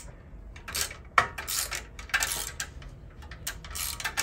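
Hand tools on metal: irregular clicks and clinks of a wrench working a fastener on a motorcycle frame, with one sharp clink about a second in.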